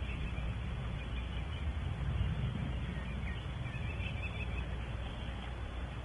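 Steady background hiss with a low rumble, picked up by the nest-box camera's microphone, with a few faint high chirps about three to four and a half seconds in.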